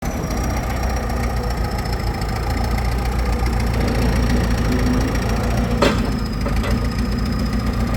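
A JCB machine's diesel engine running steadily with a low rumble and a faint high whine, with one sharp knock about six seconds in.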